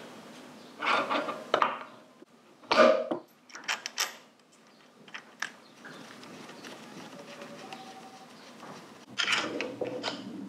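Metal parts and tools being handled in a workshop during motorcycle front-end assembly: a string of separate clinks, knocks and rubbing, the loudest about three seconds in, with quieter gaps between.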